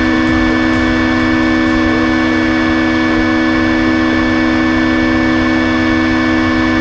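Steady electric whine and hum from a stationary electric RC touring car with an LRP X20 brushless motor and Nosram ESC, several constant pitches holding level with no revving.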